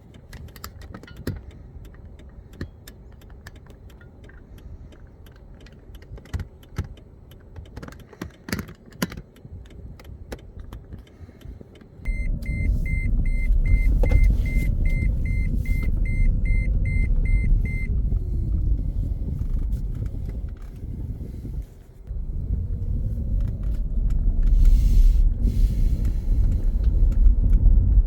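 Scattered clicks and knocks, as of handling or keys, then about twelve seconds in a vehicle starts a loud low rumble. A rapid warning chime beeps about twice a second for some six seconds. The rumble breaks off briefly and then carries on.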